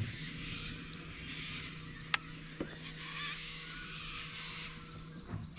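Riverside outdoor ambience of birds and insects calling, with a steady low hum and one sharp click about two seconds in.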